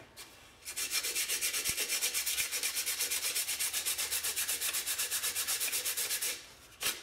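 Coarse sandpaper rubbed by hand over a filled, undercoated metal bicycle mudguard in quick, even back-and-forth strokes, about eight a second, taking down excess filler to level the surface before painting. The sanding starts under a second in and stops shortly before the end.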